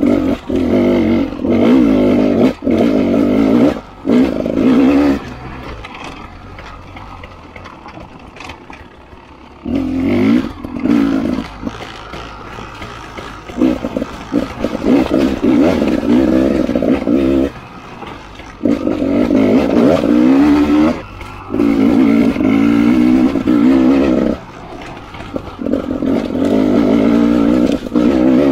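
Beta 300 RR two-stroke enduro motorcycle engine, ridden under load, revving hard in bursts of a few seconds. Between the bursts the throttle is closed and the engine drops back quieter, with its pitch rising and falling throughout.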